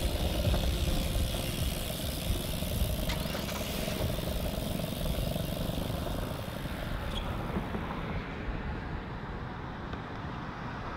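Steady rumble and hiss of a moving vehicle, with a few faint clicks.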